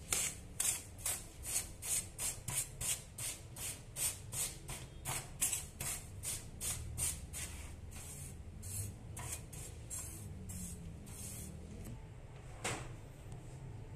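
Rhythmic swishing scrapes of ground palm sugar granules being worked after grinding, about three strokes a second. The strokes thin out and fade after about eight seconds, with one louder swish near the end. A steady low hum runs underneath.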